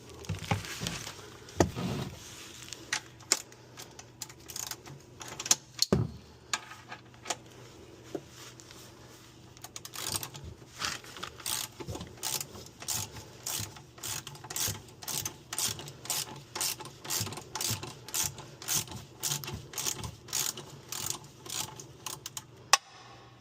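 Ratchet wrench with a 15 mm socket clicking as it loosens the engine oil drain plug. The clicks are scattered at first, then settle into a steady, quick run through the second half.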